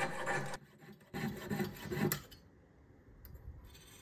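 Jeweller's saw cutting a small notch into a silver hoop: a few short scraping strokes over the first two seconds, then only faint scratches.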